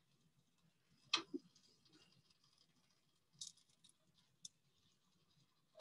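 Near silence broken by a few light knocks and clicks, as when things are handled while a roast is checked: two close together a little over a second in, a click or two a couple of seconds later, and a last knock at the very end.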